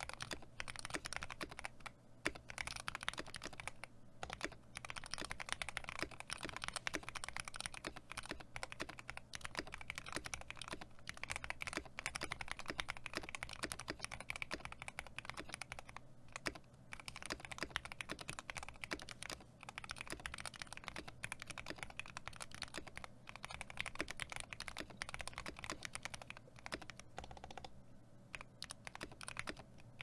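Fast typing on a mechanical keyboard fitted with HK Gaming PBT keycaps: a dense, even clatter of keystrokes with a few brief pauses.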